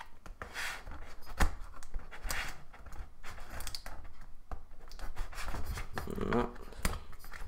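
Scissors cutting open the seal of a cardboard box, with scattered sharp clicks and short scrapes of the blades on the cardboard and rustles as the box is handled.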